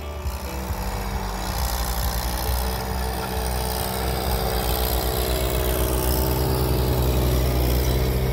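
New Holland compact diesel tractor engine running steadily under load while it pulls a chisel-shank tillage implement through the soil.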